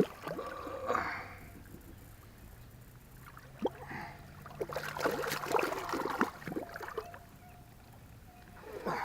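Irregular splashing and gurgling of pond water, heaviest about halfway through, as a small hooked carp of about 2 pounds is pulled in.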